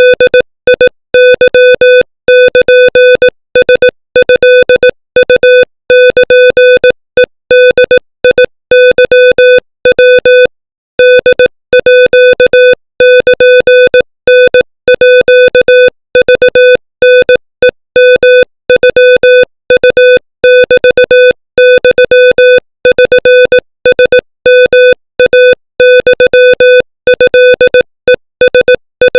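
Morse code at 25 words per minute: a buzzy electronic beep of one steady mid pitch keyed on and off in short dots and longer dashes, with short gaps between letters and a longer pause about ten seconds in.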